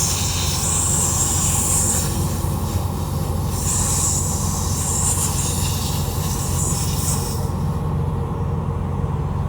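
Air hissing out of a puncture in a pickup truck's rear tire, in uneven high-pitched spurts that cut off about seven and a half seconds in, over a steady low hum.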